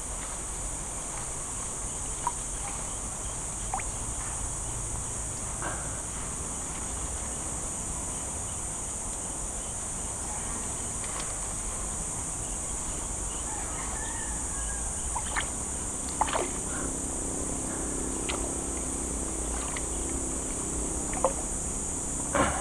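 Steady, high-pitched insect chorus, with scattered small clicks and knocks.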